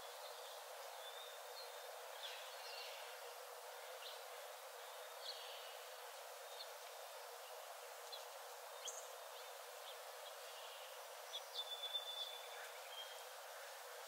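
Faint forest ambience: a steady soft hiss with scattered short bird chirps and calls, a quick run of louder chirps a little before the end.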